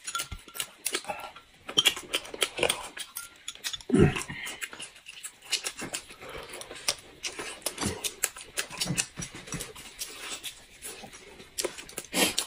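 Close-miked eating: wet chewing, lip-smacking and sucking meat off braised pork bones, with many small clicks. A short low grunt-like sound comes about four seconds in and another near the end.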